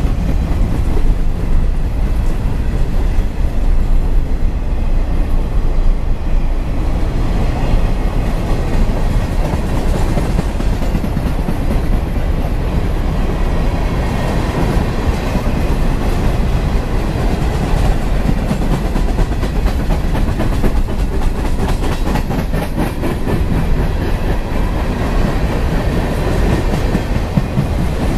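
A train's cars rolling past at close range: a loud, steady rumble with the rhythmic clickety-clack of wheels over the rails, the clacks plainer near the end.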